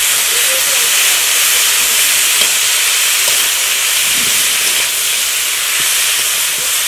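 Drumstick pieces, potatoes and tomatoes sizzling steadily in hot oil in a wok while being stirred with a metal spatula, sautéed together with a ground spice paste.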